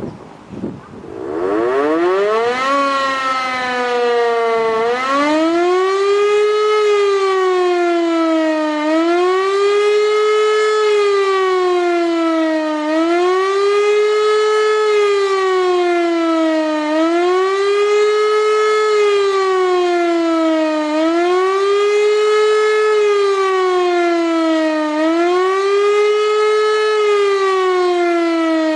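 E-57 motor siren spinning up about a second in, its pitch climbing for a few seconds, then wailing up and down about every four seconds. This is the German rising-and-falling warning tone for alerting the population.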